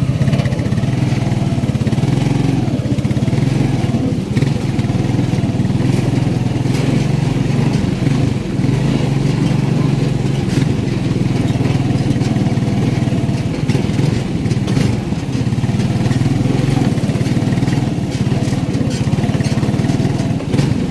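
Small motorcycle engine running steadily under way at an even, unhurried pace over a rough dirt road.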